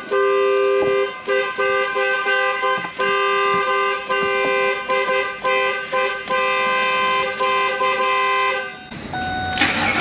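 Car's factory anti-theft alarm sounding the horn, a steady two-tone blare with brief breaks, triggered after the battery was disconnected. The horn cuts off about a second before the end, and the engine is cranked right at the end.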